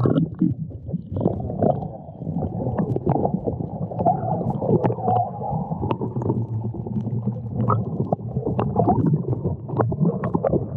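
Muffled underwater sound through a camera's waterproof housing: a steady low rumble and gurgle of water, broken by many short sharp clicks.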